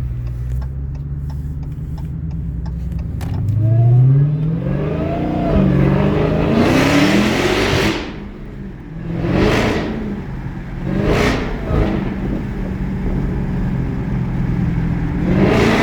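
Dodge SRT Hellcat's supercharged 6.2-litre Hemi V8 idling, then revved: the pitch climbs with a rising supercharger whine into one long rev, followed by a few shorter blips of the throttle.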